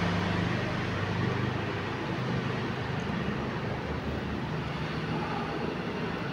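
Steady rushing noise of milk payasam simmering in an open aluminium pressure cooker on a gas burner, while a ladle stirs it.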